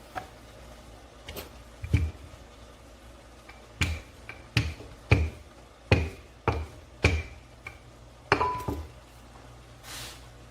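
A run of about ten sharp kitchen knocks, roughly one every half second, each a dull thud with a brief ring.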